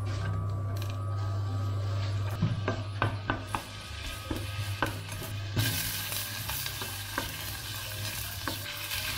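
Minced garlic frying in oil in a stainless steel pan, with a nylon spatula scraping and tapping against the pan. A low hum runs underneath at first. About five and a half seconds in, a louder, fuller sizzle starts as sliced onion goes into the hot oil and is stirred.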